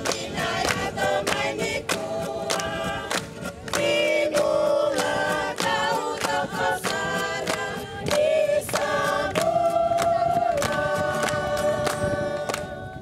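A group of villagers singing a Fijian welcome song in harmony, accompanied by a strummed acoustic guitar.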